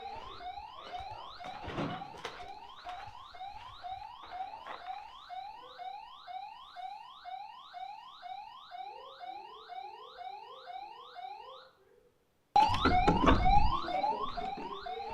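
Motion-sensor alarm sounding a rapid series of rising electronic chirps, about three a second. Near the end it cuts out for under a second and then resumes louder. Shortly before the cut, a fainter, lower series of chirps runs alongside it.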